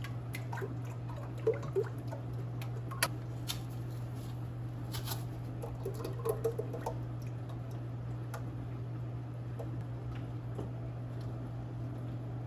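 Whipping cream poured from cartons into a stainless steel stand-mixer bowl, with light taps and clicks from the cartons being handled, over a steady low hum.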